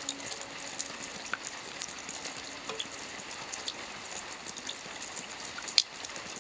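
Rain falling: a steady hiss with many individual drops ticking, one drop landing much louder near the end.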